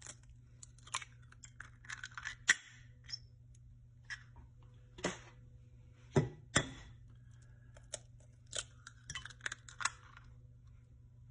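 Eggs being cracked on the rim of a bowl and opened into it: irregular sharp taps and small clinks, a couple of them in quick pairs, with a steady low hum underneath.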